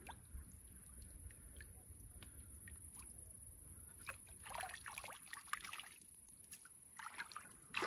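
Faint water dripping and sloshing in the shallow lake margin as a mirror carp is released from the hands, with a short run of louder splashing about four to five seconds in as the fish swims off, and another near the end.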